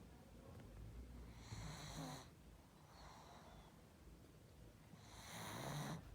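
Pug snoring in its sleep: slow, noisy breathing with two louder snoring breaths, about a second and a half in and again about five seconds in, each lasting under a second. This kind of snoring is typical of the breed's short, flat muzzle and narrow airway.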